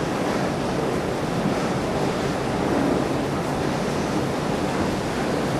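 Heavy rain pouring steadily in gusting wind at the tail end of a hailstorm, a constant rushing hiss with wind buffeting the microphone.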